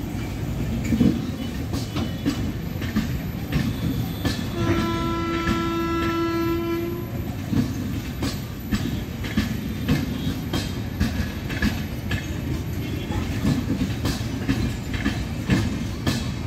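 Passenger coaches of an electric express train rolling past, their wheels clicking over the rail joints above a steady rumble. About four and a half seconds in, a train horn sounds one steady note for about two and a half seconds.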